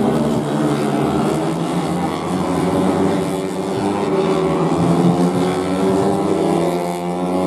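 Several 150cc four-stroke underbone race motorcycles running hard, their overlapping engine notes rising and falling in pitch.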